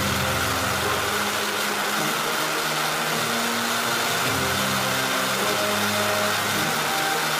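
Kalam-100 solid rocket motor firing on a test stand: a steady, unbroken rushing roar. Background music of held low notes changing every second or two plays over it.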